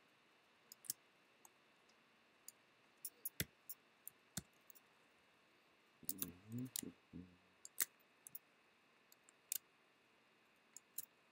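Faint, irregular single clicks of a computer mouse, a dozen or more spread through the quiet, with a brief low hum from a voice about six seconds in.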